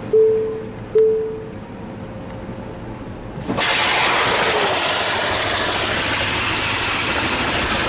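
Two short chime-like tones a second apart, then about three and a half seconds in the high-pressure water spray of a Belanger Kondor KL2 touchless car wash starts hitting the car. It makes a sudden, steady, loud hiss, heard from inside the car.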